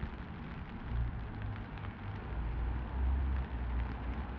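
Steady rain pattering with scattered drips, over a low rumble that swells from about a second in and eases near the end.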